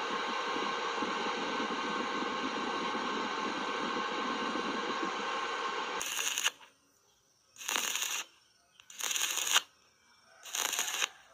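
Steady hiss and whir from a DC inverter arc welder's cooling fan. About six seconds in, this gives way to four short bursts of stick-welding arc crackle, each about half a second long and about one every second and a half, with near silence between. The arc is struck and broken again and again, as in stitch-welding galvanized square pipe vertically.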